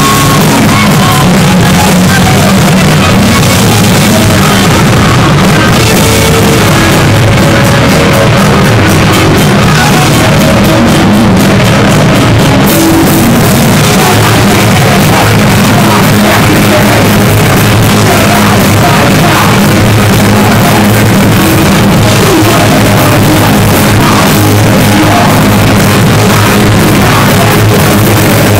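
Heavy metal band playing live: distorted electric guitars, bass and drums at full tilt, with shouted vocals. The sound is loud and unbroken.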